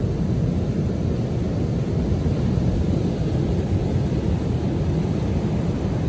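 Rough ocean surf breaking offshore and washing up a sandy beach, a steady low rumble of churning water.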